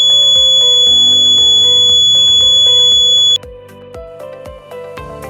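Smoke detector kit's buzzer ringing in one steady high tone, set off by the MQ2 smoke sensor module detecting smoke. It cuts off suddenly a little over three seconds in, leaving soft background music.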